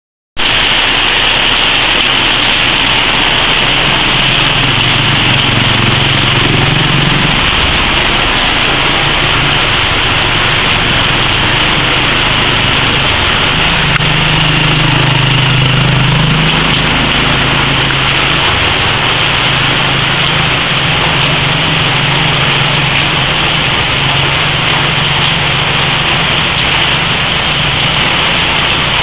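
Steady heavy rain hissing, with the low hum of motor engines rising and falling underneath. It starts abruptly just after the beginning.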